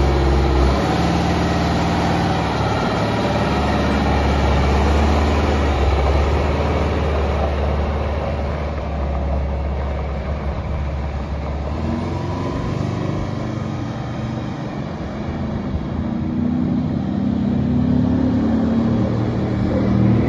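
Oshkosh M1070 heavy tractor's Detroit Diesel 8V-92 two-stroke V8 diesel running as the truck pulls away and drives off across gravel. The engine fades with distance, then rises again in pitch and level over the last few seconds.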